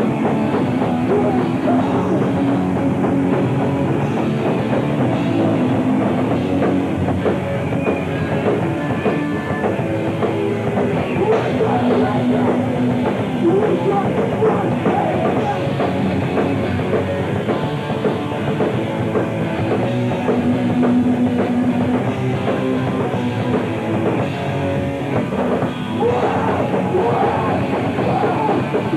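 Live band playing loud, fast rock music in a punk style, with a drum kit driving it, heard through the crowd.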